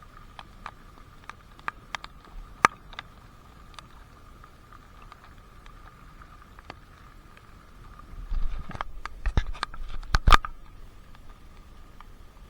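Water drops falling, with sharp taps at uneven intervals over a faint steady whine. About eight seconds in comes a louder flurry of drops with a low rumble.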